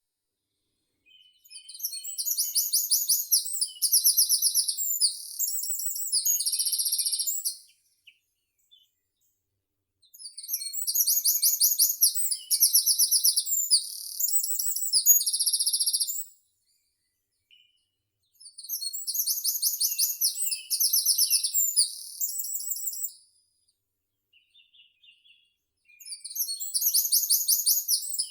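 A songbird singing long, very high trilled songs of about five to six seconds each, made of rapid repeated trills and ending in a buzzy note. Three full songs are separated by short pauses, and a fourth starts near the end.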